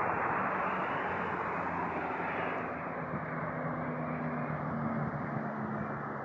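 Road noise of a vehicle that has just passed on a highway, slowly fading as it draws away, with a low steady engine hum underneath.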